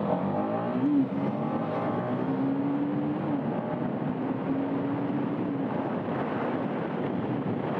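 Motorcycle engine running while riding, with a steady rush of wind noise. The engine's pitch rises briefly about a second in, then holds steady in stretches as the throttle is held.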